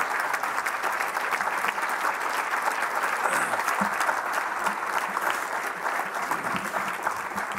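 Large audience applauding steadily, a dense unbroken wash of hand claps.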